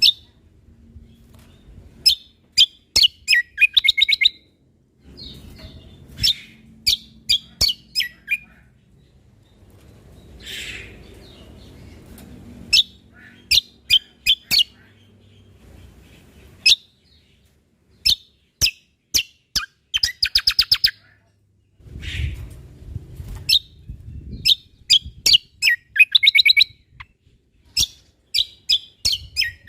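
A cucak kombo (kecial kombok) songbird singing in short bursts of quick, sharp chirping notes, one burst every second or two, some of them run together into fast rattling trills.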